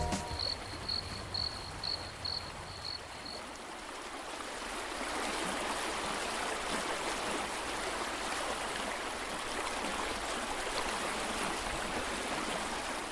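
Steady rushing of water, like tidal current flowing past the boat. A faint high chirp repeats about twice a second for the first few seconds, then stops.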